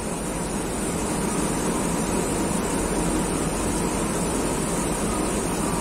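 Steady background noise: an even rumble and hiss with no distinct events.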